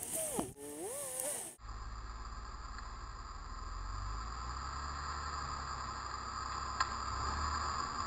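Rock-crawling off-road truck's engine running at low revs as it climbs over boulders: a steady low rumble that swells a little midway, with one sharp click about seven seconds in.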